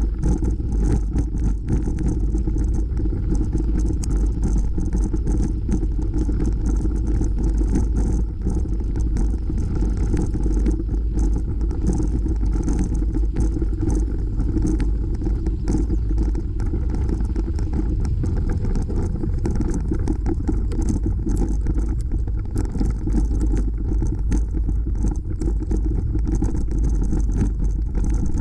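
Bicycle riding on a gravel trail: a steady low rumble of wind on the microphone and tyres rolling over gravel, with fine rattles and crackles from the ride throughout.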